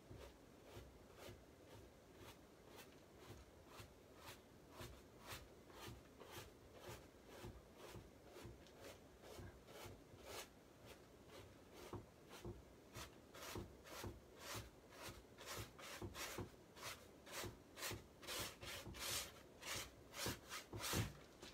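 Paint being scrubbed onto a large stretched canvas in quick, repeated strokes, about two a second, getting louder toward the end.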